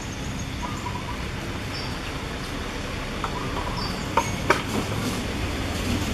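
Outdoor tree-canopy ambience: a steady low background noise with a few short, high chirps, and two sharp clicks close together about four seconds in.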